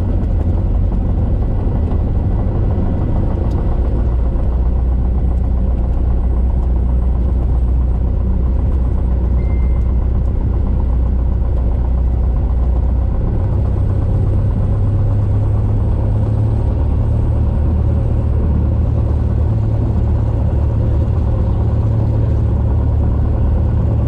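Cessna 172's piston engine and propeller running at low power, heard from inside the cockpit as a steady low drone. The engine note steps up in pitch about halfway through.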